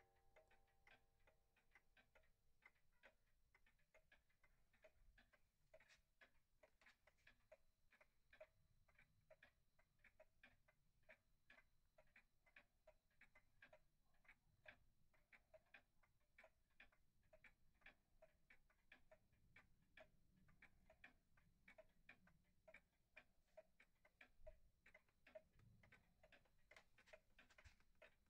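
Takano Seimitsu 'deer mark' shrine-style spring-driven pendulum wall clock ticking faintly and steadily, the even tick-tock of its escapement as the pendulum swings.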